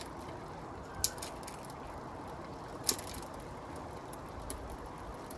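Two sharp clicks, about two seconds apart, from the 8-speed gear shifter of a 20-inch Forme Kinder MX being clicked to change gear, over a low steady background. The shifter clicks but the chain does not move to the next gear: the rear derailleur's cable needs adjusting at its adjuster screw.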